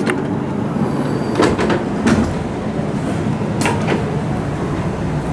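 A train's push-button sliding door opening after its open button is pressed, with a few sharp clunks, over steady station and train noise.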